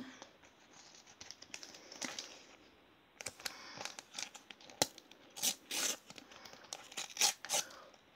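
A Topps sticker packet wrapper being torn open by hand. It starts with faint rustling, then about three seconds in comes a run of short rips and crinkles, loudest around the middle.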